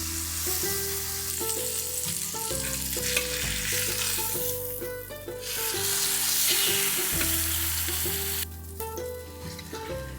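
Food sizzling and frying in a pan, a steady hiss that swells and eases a few times, over light background music.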